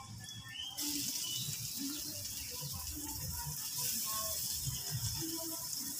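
Sliced onions sizzling in hot oil in a karahi: a steady frying hiss that gets louder about a second in.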